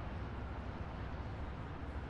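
Ocean-front ambience: a steady wash of surf noise over a deep, constant rumble, with no single wave standing out.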